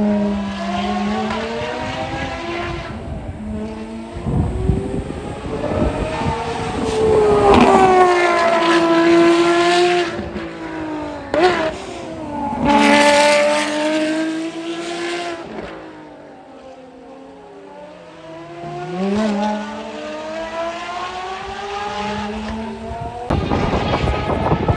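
Ferrari racing cars' engines at high revs passing on track, climbing in pitch and falling away. The two loudest passes come about a third and half way in, and engine note returns after a quieter spell.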